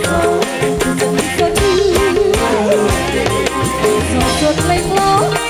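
Band music: a wavering melody line over a steady drum and rattle beat.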